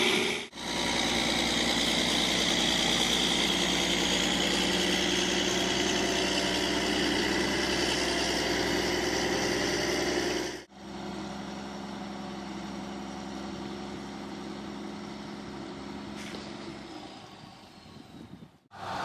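Diesel engine of heavy machinery running steadily. About ten seconds in the sound cuts to a second, quieter engine drone that fades out near the end.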